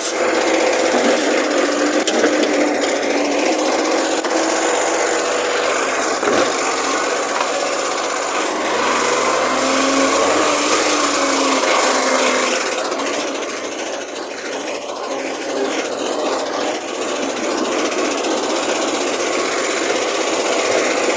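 Garbage truck running at close range with a steady rattling mechanical noise; its engine note rises and falls back about nine to twelve seconds in.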